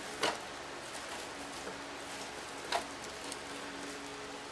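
Faint rustling of plastic deco mesh and a wire wreath frame being handled as the mesh bundle is fixed into the frame's ties, with two short crinkles, one just after the start and one a little past the middle.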